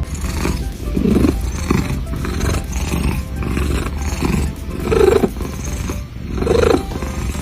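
An animal giving several loud, rough calls in bursts, the loudest about a second in, about five seconds in and near the end, over background music.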